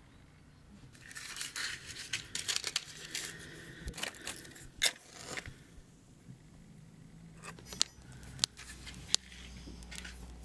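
Kindling being lit in a brick Russian stove: a rustling, scraping stretch, then scattered sharp snaps and clicks as the split wood catches.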